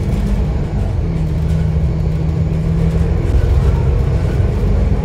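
Double-decker sightseeing bus running, heard from on board: a steady engine hum over road rumble, its pitch shifting briefly about half a second in.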